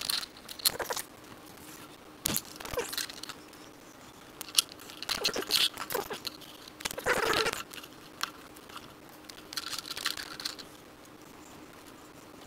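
Painted plywood dash panel being handled and fitted against a metal cab housing: irregular scraping and rubbing with a few sharp knocks, the longest scrape about seven seconds in.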